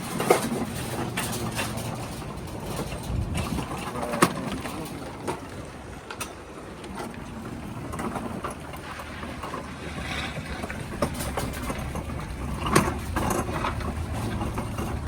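Scattered knocks and thumps of handling, the sharpest just after the start, about four seconds in and near the end, over a steady low rumble.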